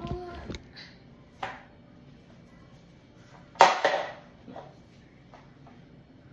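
Kitchen objects being handled and set down: a few scattered knocks and clicks, with one louder clatter about three and a half seconds in.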